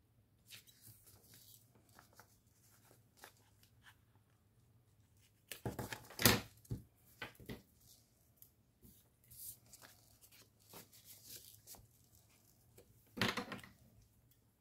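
Paper being handled at a desk: scattered rustles and small clicks, with a louder tearing or crinkling burst a little before the middle and another near the end.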